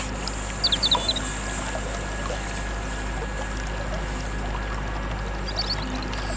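A small bird chirping in two short bursts of quick sweeping calls, about half a second in and again near the end, over a steady rushing noise.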